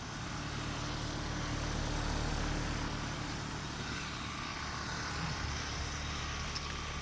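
Carrier outdoor air-conditioner unit running in heating mode, working as a heat pump: its fan and compressor make a steady hum with a constant low tone, swelling slightly about two seconds in.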